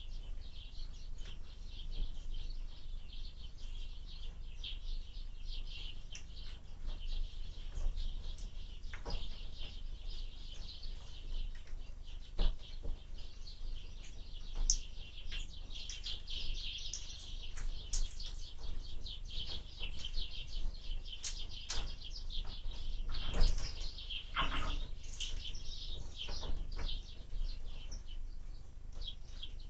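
Small birds at a window feeder chirping continuously in many short high calls, over a low wind rumble. A few sharp knocks come through, the loudest about two-thirds of the way in.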